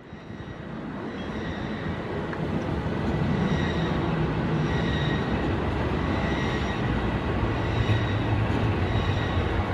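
Mont-Blanc Express electric train rolling slowly into the station, a steady rumble of wheels on the rails with thin high tones above it. It fades up over the first three seconds, then holds steady.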